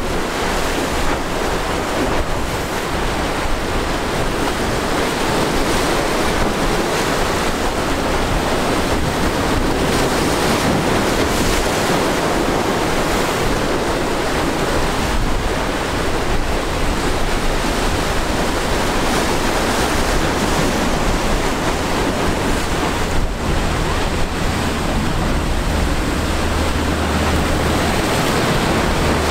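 Rough surf and choppy inlet water rushing and breaking, with wind buffeting the microphone throughout. In the last several seconds a low, steady engine drone comes in as a sportfishing boat runs close past.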